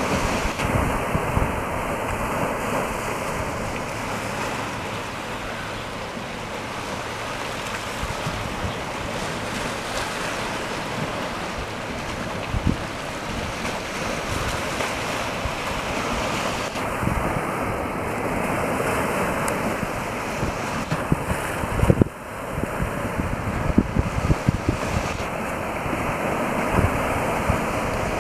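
Sea washing over a rocky shore, with wind buffeting the microphone in irregular gusts, which come harder in the last few seconds.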